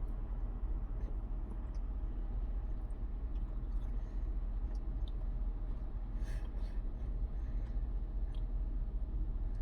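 Steady low hum of room background noise, with a few faint clicks and a brief soft rustle about six seconds in.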